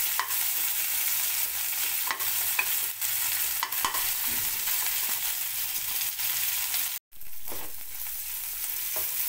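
Onion and tomato tadka frying in ghee in a pan, a steady sizzle with the scrape and tap of spatulas stirring it against the pan. The sound drops out for a moment about seven seconds in, then the sizzle goes on a little quieter.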